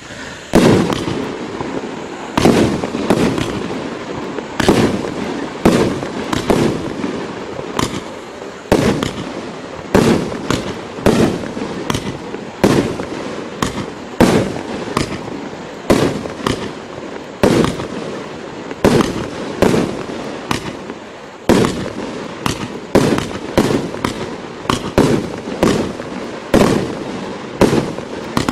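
Consumer firework barrage cake ('Original' by Absolute Fireworks) firing a rapid series of shots. Sharp bangs come about one to two a second over continuous noise in between.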